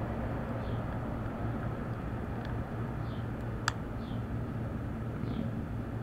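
Small metallic clicks of a hook pick and tension wrench working the pins in a Master Lock Lockout padlock's cylinder, one sharp click about three and a half seconds in. Under it runs a steady low rumble, with a faint short falling chirp about once a second.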